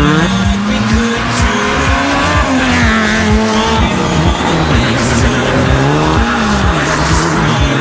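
Mitsubishi Lancer Evolution rally car's turbocharged four-cylinder engine revving hard as the car passes, its pitch rising and falling several times.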